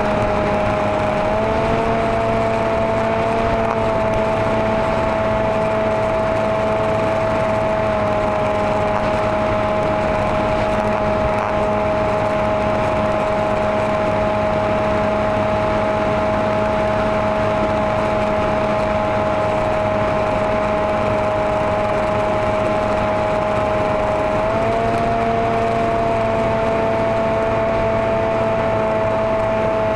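Maxi Swift RC flying wing's motor and propeller running in flight, heard from the onboard camera as a steady whine over wind rush. The pitch rises a little about a second and a half in and again near the end, easing back in between.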